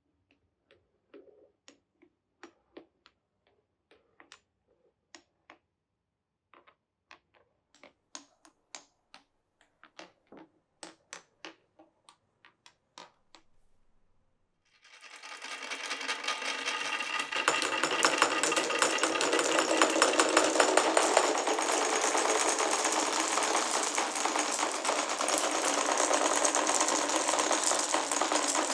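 Marbles clicking one at a time along a wooden marble run track, the clicks growing more frequent. About halfway through, a dense, continuous rattle of many marbles clattering together builds up over a couple of seconds and then stays loud.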